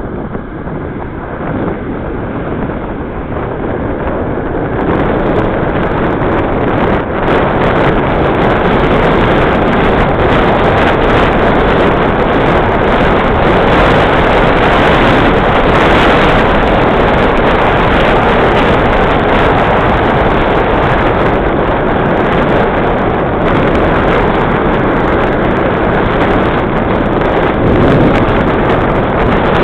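Wind buffeting the microphone of a camera on a moving bicycle: a loud, steady rushing that grows louder over the first five seconds or so, then holds.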